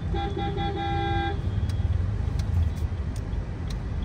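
A vehicle horn honks in traffic: a few short toots and then a longer blast, all in the first second and a half. A steady low engine and road rumble, heard from inside a car, runs underneath throughout.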